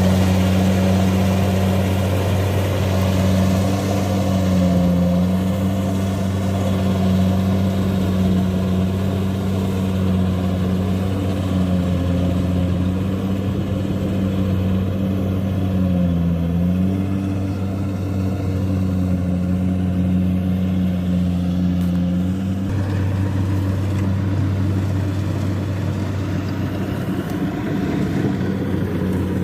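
Kubota DC-93 combine harvester running steadily under load, its engine pitch sagging briefly twice, about five and about sixteen seconds in. Near the end the steady tone gives way to a rougher sound.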